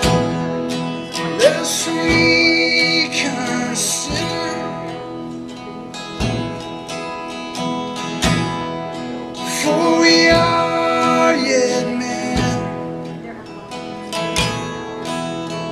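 Two acoustic guitars strummed together in an instrumental passage, with a strong accent about every two seconds. A higher, gliding melody line comes in twice, about a second and a half in and again near ten seconds.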